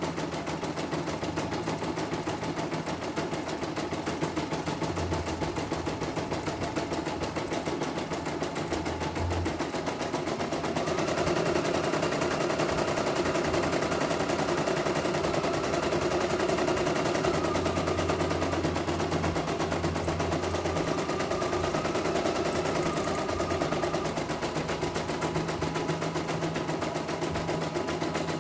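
CNY E900 portable embroidery machine stitching, its needle running in rapid, even strokes without a break, a little louder through the middle stretch.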